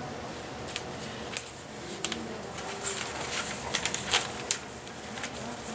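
Quiet room tone with scattered short, sharp clicks and taps, several of them bunched together a little before the end.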